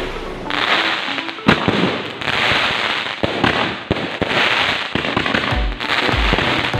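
Fireworks display: several ground-fired shots going off in quick succession, with sharp pops and a dense crackling hiss, mixed with background music that has a pulsing bass beat in its last second or so.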